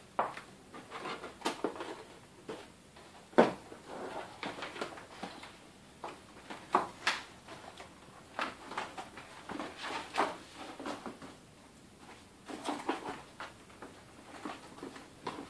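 Cardboard display panels being handled, folded and slotted together: irregular knocks, scrapes and rustles, with a sharp knock about three and a half seconds in and another about seven seconds in.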